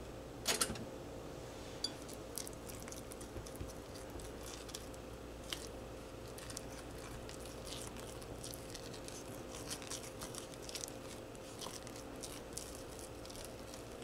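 Spatula stirring and scraping a thick batter in a small glass bowl: soft, irregular scrapes and light ticks against the glass, with a louder knock about half a second in. A faint steady hum runs underneath.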